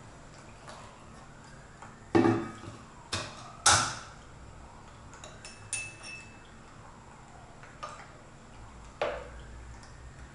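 Porcelain tea ware and a thermos knocking and clinking on a wooden tea tray: about six separate knocks, the two loudest about two and four seconds in, one followed by a short high ring.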